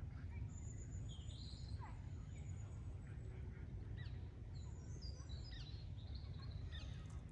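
Small birds chirping and calling in short, quick notes over a steady low rumble.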